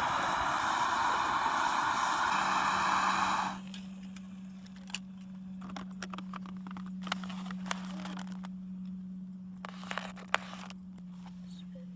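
A motor runs loudly and cuts off abruptly about three and a half seconds in. A steady low hum carries on after it, with scattered light clicks and knocks.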